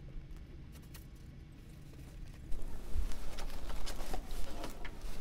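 Paper pages of a notebook rustling and crackling as they are handled and turned, starting suddenly about two and a half seconds in. Before that only faint scratches and ticks of a fountain pen nib on paper.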